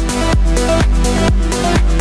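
Electronic dance music with a steady beat, about two beats a second.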